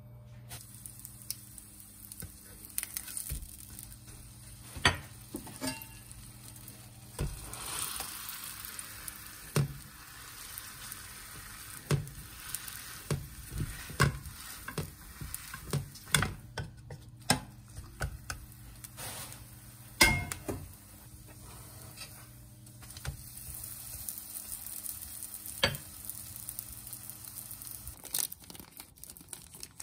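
Food frying in a pan with a steady sizzle, while a cooking utensil knocks and scrapes against the pan at irregular intervals; the sharpest knocks come about five seconds in and about twenty seconds in.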